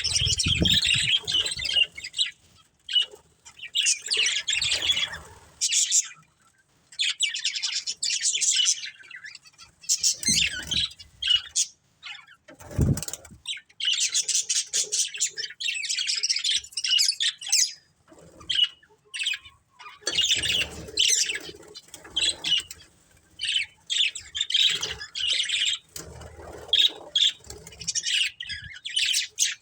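Pet budgerigars chirping and chattering in bouts of rapid high chirps with short pauses between them, along with a few low thumps, the loudest about 13 seconds in.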